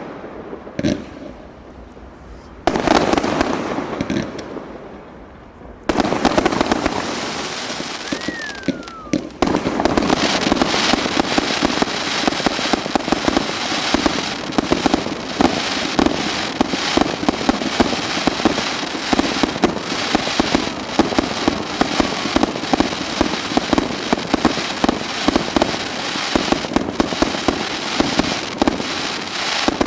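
Fireworks display: a few separate bangs, each trailing off in crackle, and a falling whistle. Then, from about ten seconds in, a dense unbroken barrage of rapid bangs and crackling.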